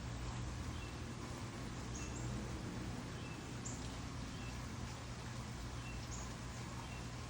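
Steady rain hiss with a low steady hum underneath, and a bird giving a short high chirp every second or two.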